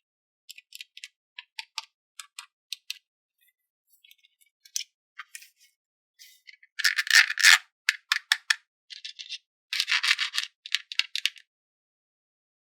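Plastic toy packaging and small plastic parts being handled: scattered light clicks and taps, with two louder stretches of crinkling about seven and ten seconds in.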